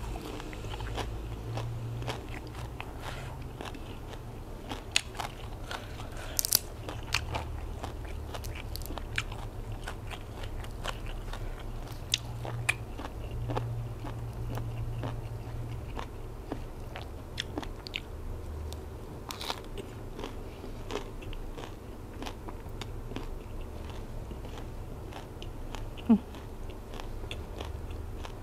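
Close-miked eating: wet chewing and crisp crunching of silkworm-pupa salad with fresh raw leaves and herbs, with a few sharper crunches.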